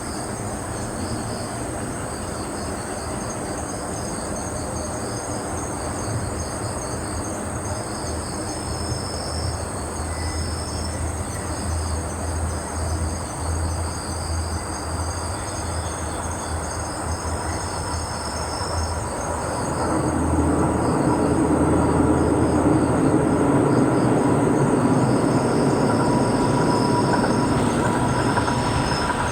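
Insects chirring steadily in pulses. Behind them, JR Central KiHa 75 diesel railcars approach, their rumble growing louder from about two-thirds of the way in.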